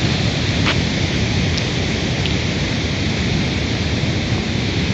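Steady rushing noise of the fast-flowing Fraser River through the canyon below, a loud unbroken roar of rapids with a deep rumble underneath.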